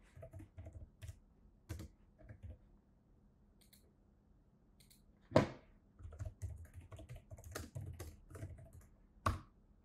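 Quiet typing on a computer keyboard in short runs of keystrokes, with a lull of about two seconds near the middle. Two louder single clicks stand out, one about halfway through and one near the end.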